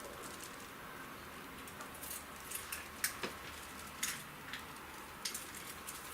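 Half a dozen light, sharp clicks and scrapes of hand-tool handling, clustered in the middle seconds, over a steady low hum.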